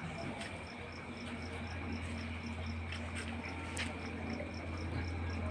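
High, even insect chirping, about three chirps a second, over a steady low hum.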